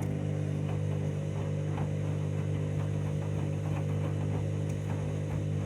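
Candy front-loading washing machine running its 60-degree main wash with a full load: a steady motor hum, with faint irregular swishes and ticks of water and clothes in the turning drum.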